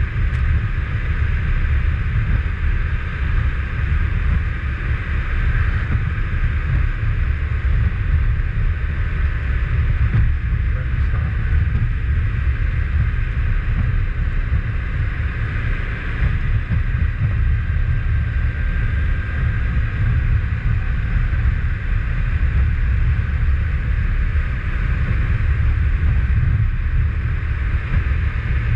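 Motorcycle riding at road speed: a steady, loud low rumble of engine, road and wind noise, even throughout.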